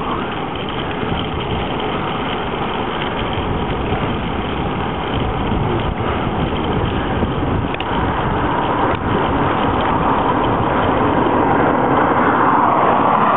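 Steady wind and road noise while riding a touring bicycle along a sealed highway, with wind buffeting the camera microphone; it grows a little louder toward the end.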